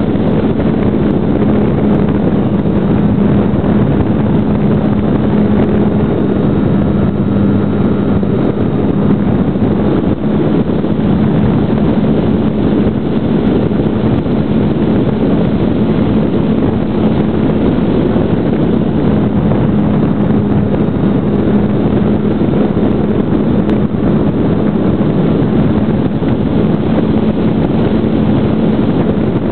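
GWS Slow Stick's brushless electric motor and propeller running at a steady pitch, heard from a camera on board the plane, with wind rushing over the microphone.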